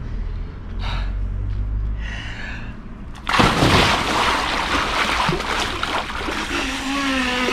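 A man drops backward into a shallow inflatable pool, making one big splash about three seconds in, followed by water sloshing and churning in the pool. Near the end comes a short vocal gasp.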